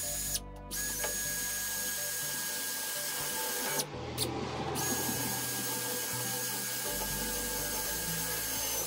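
Cordless drill running with a steady whine as it turns a small tine cultivator through its gearbox; the whine breaks off for about a second near the middle.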